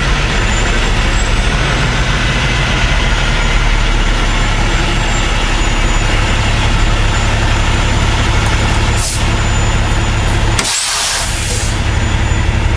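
Heavy truck's diesel engine running steadily, heard from inside the cab. A short hiss of air about nine seconds in, then a sharp click and a longer hiss of about a second, like air-brake air being let off.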